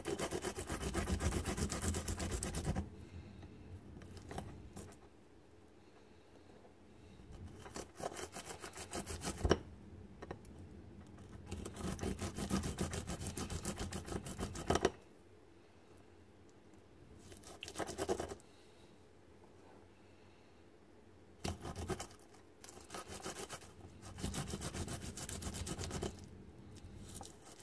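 Garlic cloves rubbed quickly back and forth on a glazed ceramic garlic grater plate, grating them to a paste. The strokes come in spells of a few seconds with short pauses between.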